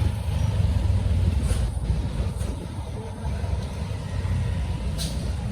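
Engine of small construction machinery running steadily with a low rumble, with a few short knocks about a second and a half in and again near the end.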